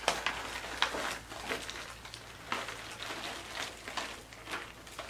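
Caramel popcorn being poured and shaken out of a snack bag, the pieces dropping onto a napkin on a table: an irregular scatter of light ticks and rustles.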